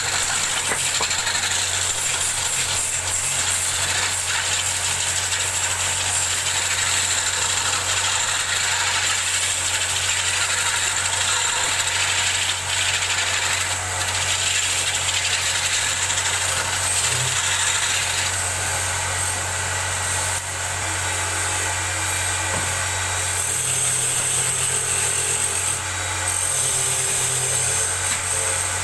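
Custom wood lathe running steadily, its motor humming under a continuous hiss as a turning tool cuts the spinning wood.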